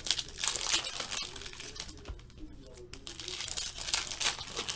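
Foil wrapper of a trading-card pack crinkling and tearing as hands peel it open, in bursts that are loudest near the start and again near the end.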